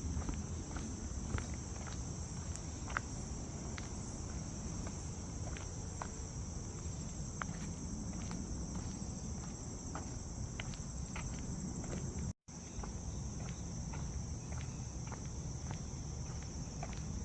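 A steady high-pitched chorus of insects, with a hiker's footsteps on the trail as scattered light ticks. The sound cuts out completely for an instant about twelve seconds in.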